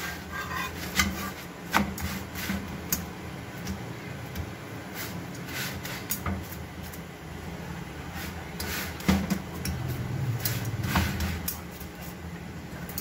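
Long flat metal spatula scraping and tapping on an iron tawa as a roti is lifted, turned and pressed: irregular short clicks and scrapes throughout, over a low steady hum.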